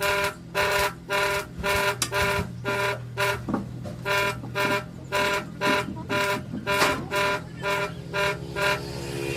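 A horn sounding in a rapid run of short toots, about two a second, all on one pitch, over a steady low hum.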